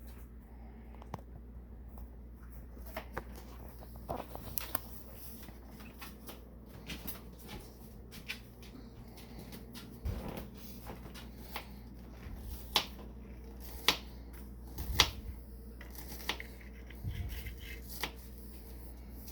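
Scattered clicks, taps and knocks of kitchen things being handled, a few of them sharper and louder, over a steady low hum.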